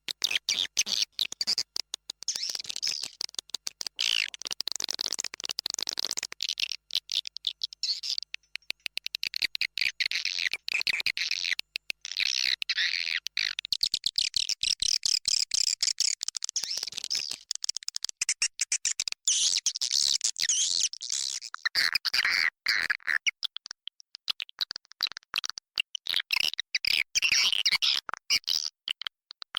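Swiftlets calling inside a swiftlet house: a dense, continuous chatter of rapid high chirps and clicks from many birds. It is a recorded swiftlet call used as a lure to draw swiftlets into a nesting house.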